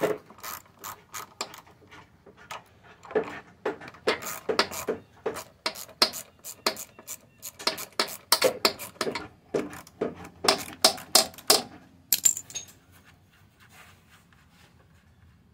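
Socket ratchet wrench with a 10 mm socket clicking in irregular runs of sharp ticks while working the carburetor mounting nuts on a Honda HR215 lawnmower. It stops about twelve seconds in.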